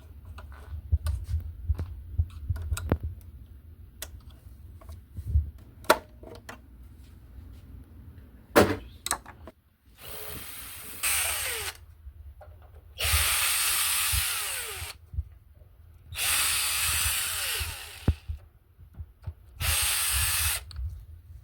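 Electric screwdriver running in four short bursts of one to two seconds each, backing out the console's screws, after several seconds of scattered clicks and knocks from handling the parts.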